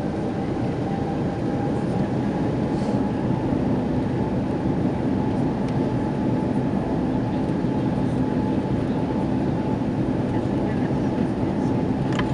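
Airbus A330-300 jet engines held at raised thrust on the runway, heard inside the cabin as a steady rumble with a faint whine, building a little over the first seconds. This is an engine run-up to shed ice before takeoff.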